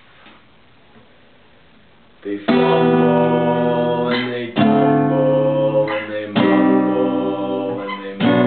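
Low room tone for about two seconds, then an acoustic guitar begins: full chords struck and left to ring, a new chord about every two seconds.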